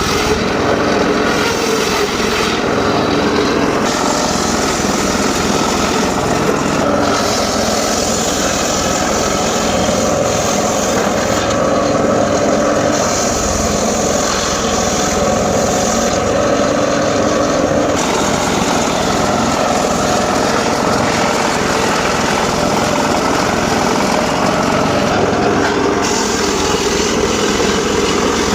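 Homemade circular saw bench running steadily with a motor drone, its blade cutting teak wood. A brighter hissing comes and goes several times, as each cut bites into the timber.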